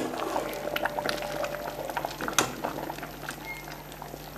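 Pot of red peas chicken soup bubbling on the stove, a steady crackle of small pops as it cooks down to thicken. Two sharp knocks stand out, one at the very start and one about two and a half seconds in.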